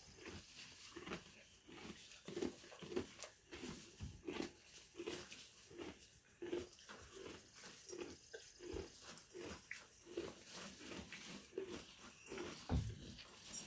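Miniature donkey chewing a mouthful of hay: a rhythmic crunching of grinding teeth, about one and a half chews a second.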